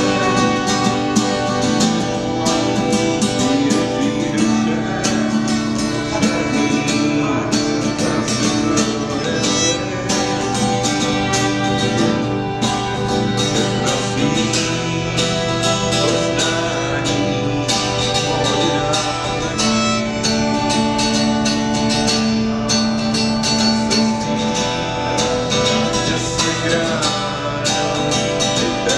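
Two fiddles and an acoustic guitar playing a tune together live: the guitar strums a steady rhythm while the bowed fiddles carry the melody with held and running notes.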